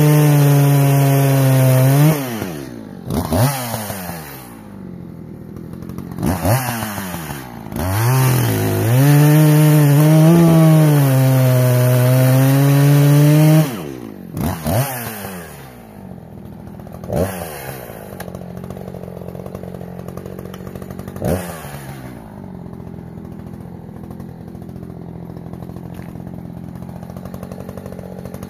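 Echo CS-590 Timber Wolf chainsaw, a 59.8 cc two-stroke, cutting live oak at full throttle, letting off about two seconds in and blipping the throttle. It cuts again under load for about five seconds from around eight seconds in, then gives a few more revs and settles to a steady idle for the last ten seconds or so.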